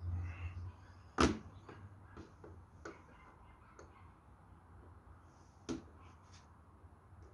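Sharp clicks and light taps of hard plastic as pliers work at a model locomotive shed's small door parts. The loudest click comes about a second in and another near six seconds, with fainter ticks between and a short low rumble at the start.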